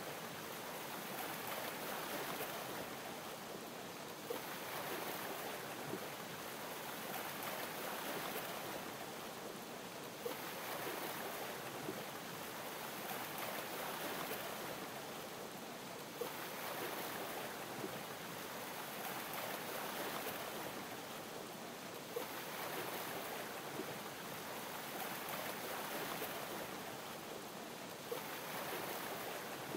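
Gentle waves lapping under a steady fizzing hiss of champagne bubbles, swelling and easing about every six seconds, with a faint click now and then.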